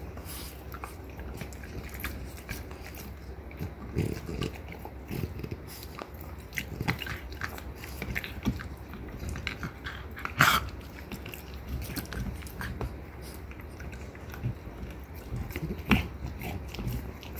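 Two French bulldogs gnawing on deer antler chews: an irregular run of teeth scraping and crunching on hard antler, with a louder sharp crunch about ten seconds in.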